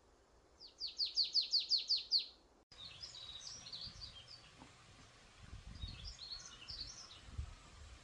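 A wild bird singing a fast run of about nine loud, downward-sliding whistled notes. After a break, fainter scattered chirps from other birds come in over a low rumbling noise.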